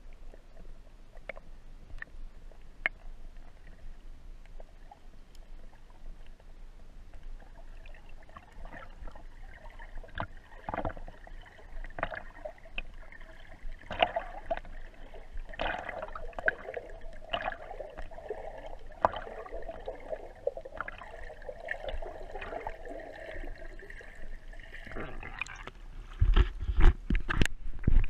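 Muffled underwater sound picked up by a camera in a waterproof housing as a swimmer moves through a lake: scattered clicks and knocks against the housing, getting busier about a third of the way in. Near the end, loud sloshing and splashing as the camera comes up into shallow water.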